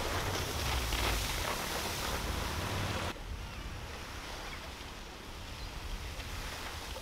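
Wind buffeting the microphone over small waves washing in, a gusty low rumble with a steady hiss. About three seconds in the sound drops suddenly to a quieter, calmer wash.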